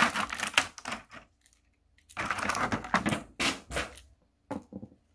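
Clear plastic packaging crackling and rustling, with small plastic clicks, as a mini flexible tripod is pulled out of it and handled. The sound comes in bursts: one in the first second, a longer one from about two to four seconds in, and short ones near the end.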